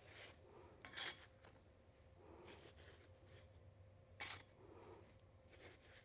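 Faint, brief scrapes of a kitchen utensil, four of them spaced a second or so apart.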